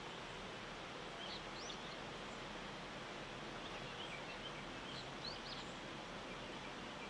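A few faint, high, short chirps and rising calls of small birds, in three brief clusters, over a steady hiss of outdoor background noise.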